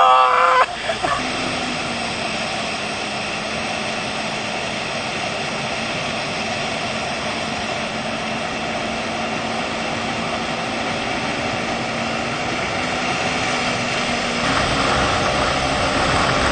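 Motorboat engine running at towing speed with wind and rushing wake water: a steady hum under a constant rush. A brief loud yell at the very start.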